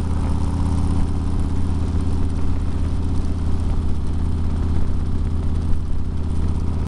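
Steady low engine drone and road noise of a vehicle cruising at highway speed, heard from on board.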